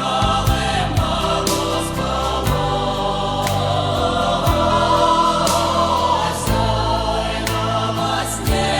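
Background music: a song in a wordless stretch between verses, with sustained choir-like voices over held chords and a steady beat about once a second.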